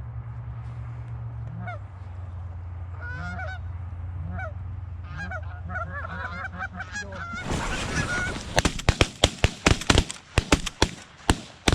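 A flock of Canada geese honking as it comes in over the decoys, then from about eight and a half seconds in a rapid volley of shotgun blasts from several hunters, a dozen or more shots in quick succession, as they fire into the flock.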